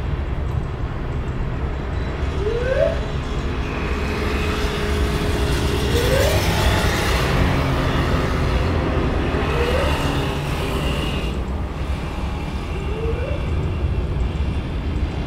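Road traffic of motorbikes and cars passing close by, a steady low rumble that swells loudest about six to eight seconds in. A short rising whine is heard four times.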